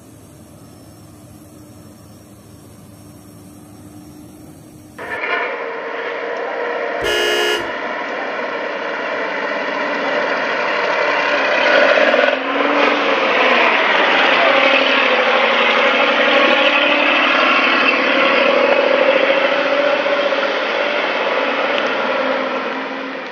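Heavy logging truck's diesel engine running, faint at first, then much louder after a sudden jump about five seconds in. A short horn blast sounds about two seconds after the jump. The engine grows loud and then fades near the end.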